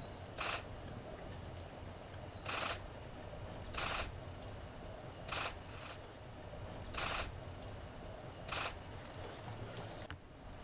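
Camera shutter firing in short bursts, six times, roughly every second and a half, over a steady outdoor background.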